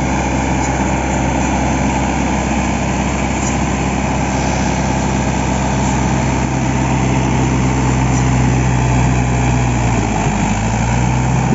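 Mahindra 415 DI tractor's diesel engine running steadily under load as the tractor pulls through deep mud. The engine note sags briefly about ten seconds in and then picks back up.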